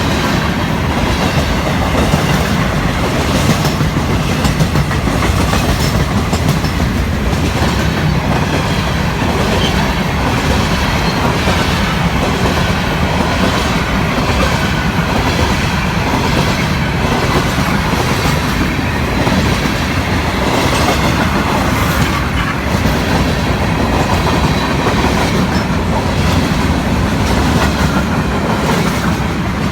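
Florida East Coast freight train's cars rolling past at track level, a loud steady rumble of wheels on rail with repeated clicks.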